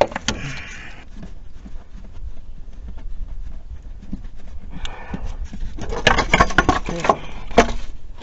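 Ratchet wrench with a swivel-head socket and extension clicking in short runs on a Jeep 3.7 V6's valve cover bolts. A dense burst of clicks and metal knocks comes near the end.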